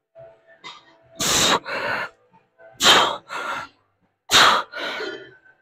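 A man breathing forcefully through lying leg curls: three pairs of sharp, hard breaths, one pair about every second and a half, in time with the reps.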